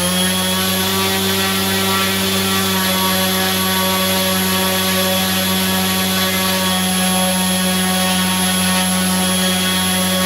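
Brushless electric motor spinning a propeller on a thrust test stand at high throttle, drawing about 7 amps: a steady drone with a high motor whine held at an even pitch.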